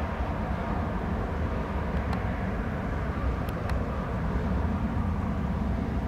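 Steady, distant rumble of a Cessna 680 Citation Sovereign's twin turbofan engines as the business jet climbs away after takeoff.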